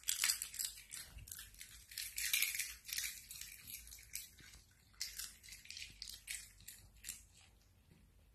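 Pomeranian puppies crunching and chewing a hard treat: quick runs of sharp crunches, in two spells, the second starting about five seconds in.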